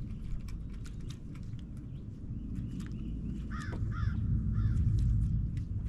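A crow cawing three times in quick succession about halfway through, over a steady low rumble and scattered light clicks.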